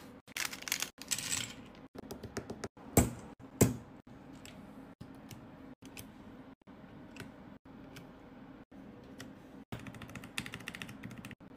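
Scattered sharp clicks and taps of hard objects being handled, with two louder knocks about three seconds in and a quick run of clicks, like typing, near the end. The sound is broken into short pieces by brief dropouts.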